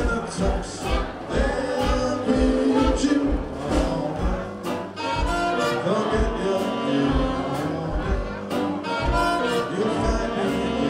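Live swing-jazz band playing: upright double bass, guitar, trumpet and saxophones over a steady beat, with a male voice singing at the microphone.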